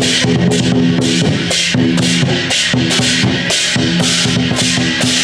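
Background music with a steady drum-kit beat, about four hits a second, over held bass notes.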